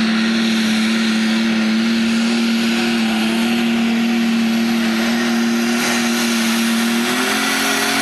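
Super stock pulling tractor's engine running at full power under load as it drags the pulling sled: a loud, steady high-revving drone whose pitch steps up slightly about seven seconds in.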